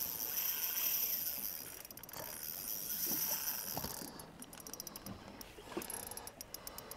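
Spinning reel clicking in quick, even runs of ticks, about halfway through and again near the end, while a hooked pike is played on the rod. A steady high hiss comes before the clicks.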